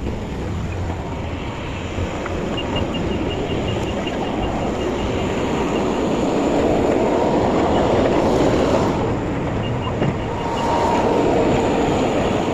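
A truck driving, with steady road and engine noise that grows louder after the middle, and two short runs of faint rapid ticking at about five ticks a second.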